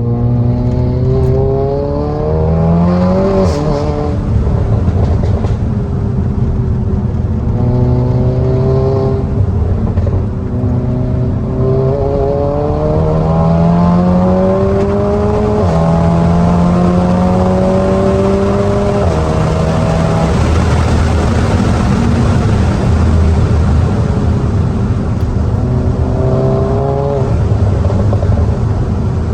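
Tuned SEAT Cupra's turbocharged four-cylinder engine with a downpipe and resonator-deleted exhaust, pulling under acceleration. The engine note rises, then drops at each gear change, several times over.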